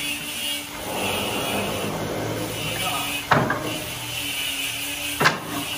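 Electric demolition hammer running steadily as it drives an earth rod into the ground, with two sharp knocks about two seconds apart.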